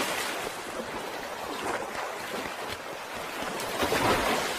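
Sea waves washing and splashing, a steady rush of surf with wind, swelling into a louder splash about four seconds in.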